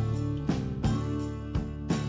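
Background music with a steady beat of sharp note attacks over held bass notes.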